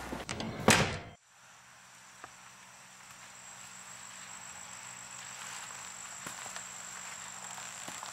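A short loud burst of noise about a second in, then a quiet ambience of insects trilling, a thin steady high tone that slowly grows louder, with a few faint clicks.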